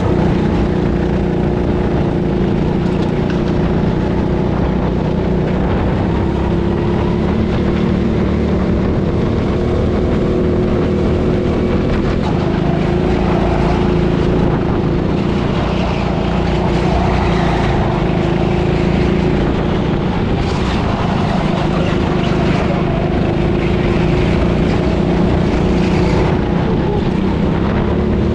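Go-kart running at speed, heard from its onboard camera: a steady motor drone under wind and rattle noise.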